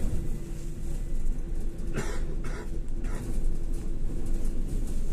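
Cabin noise of a LAZ E301D1 articulated electric trolleybus on the move: a steady low rumble with a steady hum from the electric drive, and three short hissing noises about two to three seconds in.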